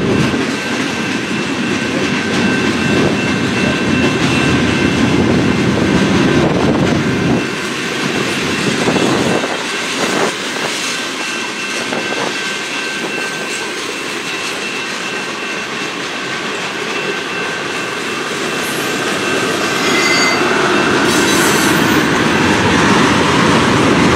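CN mixed freight train's cars rolling past on jointed track, wheels clacking steadily with a thin, continuous wheel squeal.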